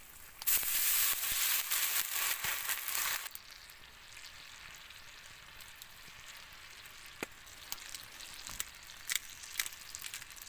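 Foie gras in a hot pan sizzling loudly for about three seconds as it is flambéed with red wine, then settling to a quieter sizzle with scattered pops.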